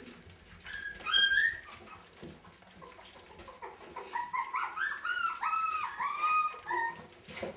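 Three-week-old puppies crying: one short high-pitched whine about a second in, then a run of short, high whines and squeals in the second half.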